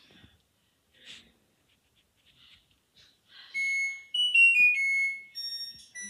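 LG washing machine's end-of-cycle tune: after about three and a half seconds of near quiet, electronic beeps begin, one held tone and then a short melody of notes stepping down in pitch, signalling that the wash cycle has finished.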